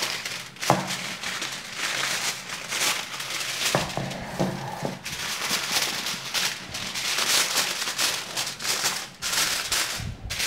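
Aluminium foil crinkling and crackling as it is pressed and folded tight around the edges of a baking dish.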